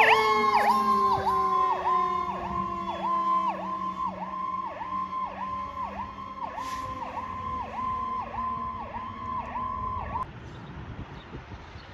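Fire engine siren moving away: a high warbling tone that dips about twice a second over a lower wail slowly winding down in pitch, fading until the siren cuts off suddenly about ten seconds in.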